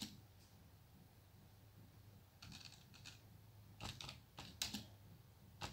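Computer keyboard being typed on: after a quiet first couple of seconds, a few short runs of key clicks.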